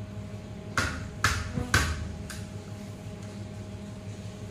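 Four sharp knocks on the aluminium window frame, about half a second apart, as glass is being fitted into it.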